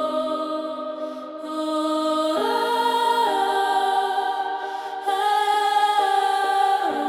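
Electronic worship music in a breakdown: sustained choir-like chords that change about every two to three seconds, with the bass and beat dropped out.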